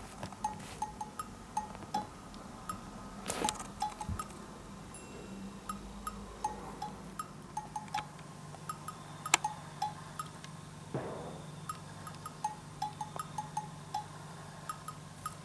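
Light, plinking background music of short wood-block and chime-like notes in a bouncy, even rhythm.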